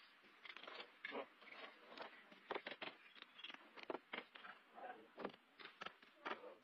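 Faint, irregular wet pats and taps of hands and feet working soft mud, several a second.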